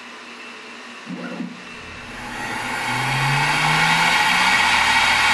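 CNC router spindle starting and spinning up to its 12,000 RPM cutting speed, its whine and air noise rising steadily in level over about two seconds and then holding. A low rising hum under it as the axis motors move the head into place, and a brief low sound about a second in.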